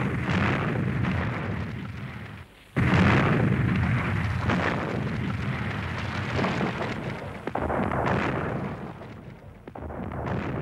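Battle sounds of explosions and gunfire. A blast dies away, a second big blast comes about three seconds in and rumbles down, and sharper single shots and bangs follow here and there.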